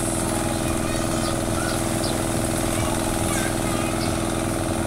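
Steady machine drone, like an engine or motor running at constant speed, with a few faint high chirps over it.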